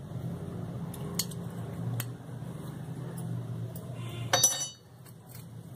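A spoon tapping against a glass mixing bowl as yeast is added to flour: a few light taps, then one sharp ringing clink about four seconds in. A steady low hum runs underneath.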